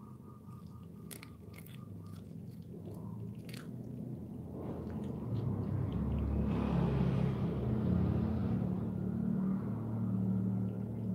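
Cat chewing and crunching corn kernels. A low, steady rumble swells in from about four seconds in and is the loudest sound from the middle to the end.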